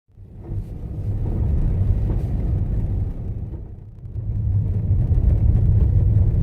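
Strong wind buffeting the microphone: a deep rumble that swells in gusts, eases about four seconds in, then builds again.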